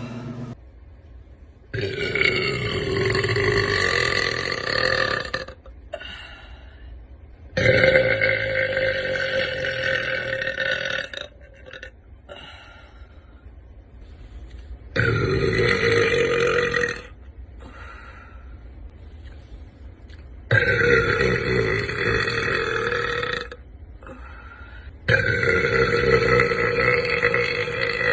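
A woman burping: five long, loud burps, each lasting about two to four seconds, a few seconds apart.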